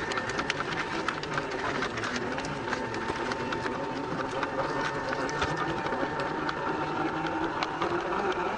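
Electric motor and geared drivetrain of a Traxxas TRX-4 scale RC crawler whining steadily at low speed, with its tyres crunching and clicking over loose shale and small rocks.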